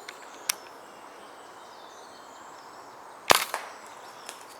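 Walther Rotex RM8 .22 PCP air rifle firing one shot, a sharp crack about three seconds in, followed briefly by a few smaller ticks. A shorter, fainter sharp click comes about half a second in.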